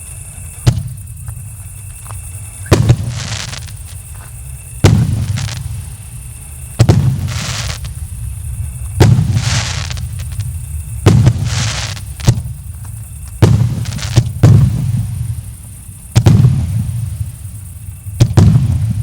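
Fireworks battery (cake) firing shot after shot, about one every two seconds. Each shot is a sharp bang followed by about a second of hiss.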